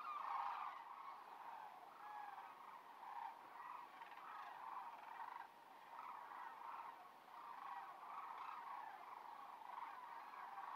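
A large flock of sandhill cranes calling all at once: a steady, massed chorus of rolling, overlapping crane calls that swells and fades.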